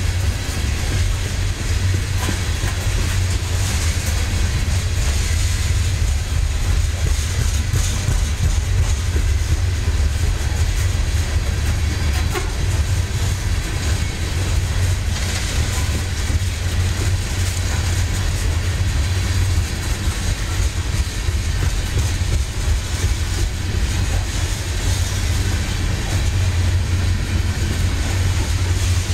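Open-top coal hopper cars of a freight train rolling past: a steady low rumble with occasional clicks from the wheels on the rails.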